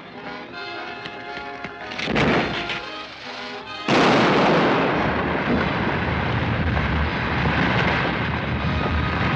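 Dramatic film score, then a short noisy burst about two seconds in, and just before four seconds a sudden loud explosion that carries on as a long, dense rumble: the mountainside blown up by a laid fuse.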